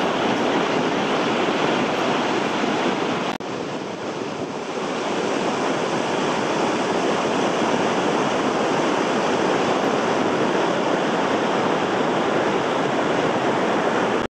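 Vøringsfossen, a 182-metre waterfall, plunging into its gorge: a steady, loud rush of falling water that dips briefly a little over three seconds in.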